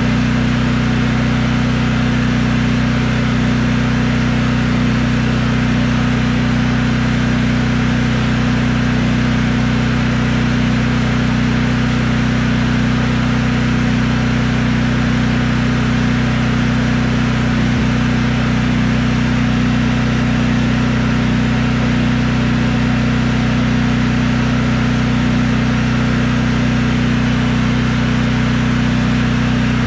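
Briggs & Stratton Elite 8000 portable generator's engine running steadily at its governed speed with no load, its output at about 61 Hz. Its steady drone does not change in pitch or level.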